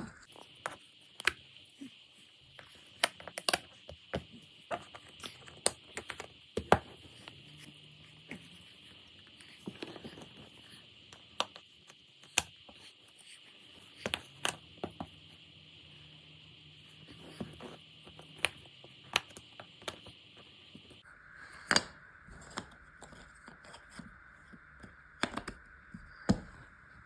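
Jigsaw puzzle pieces being handled, with irregular light clicks, taps and scrapes as they are picked up, slid about and pressed into place, over a faint steady hiss.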